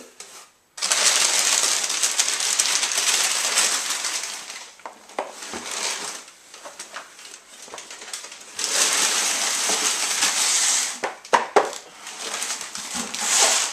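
Brown kraft packing paper rustling and crumpling as it is pulled out of a cardboard box, in two long stretches, with a few sharp knocks near the end.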